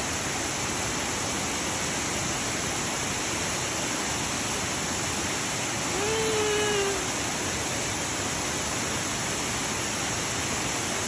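Steady rush of flowing water, an even hiss with no let-up.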